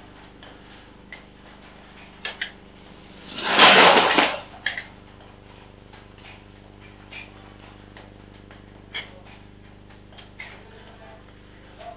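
Motorbike crash picked up by a CCTV camera's microphone: a loud crash lasting about a second, a few seconds in, with a sharp crack in the middle. Scattered faint clicks and knocks before and after.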